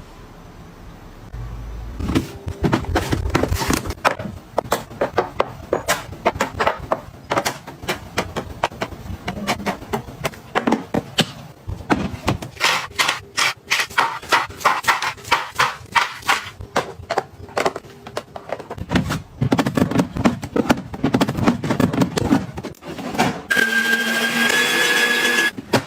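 Many quick clicks, taps and knocks of small household items being handled and set down, with some rustling between them. A short pitched tone sounds near the end.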